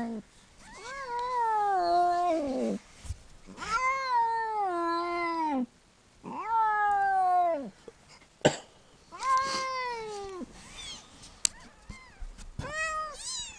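Cat in labour giving a series of long, drawn-out meows, about five in a row, each sliding down in pitch. There is a brief sharp click in the middle.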